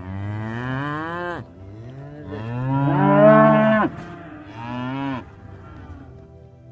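Cattle mooing: three calls, the middle one the longest and loudest, each sliding down in pitch as it ends.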